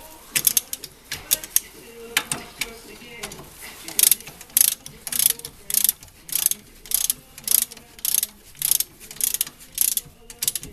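Hand socket ratchet working a bolt: a few scattered clicks at first, then a steady back-and-forth of short ratcheting strokes, about two a second.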